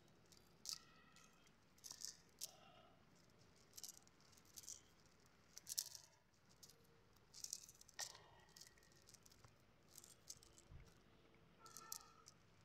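Faint rustling and crackling of a nylon cast net as fish are picked out of its mesh by hand, in short irregular bursts about once a second.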